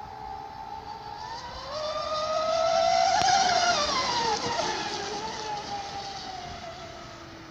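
MHZ Mystic 114 battery-powered RC speedboat passing at speed: a high motor whine that climbs in pitch and loudness, peaks about three seconds in, then drops in pitch and fades as the boat moves away.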